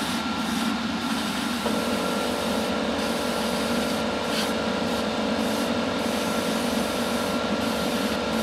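Paint booth extractor fan running with a steady whooshing hiss; a second steady hum joins about two seconds in and holds.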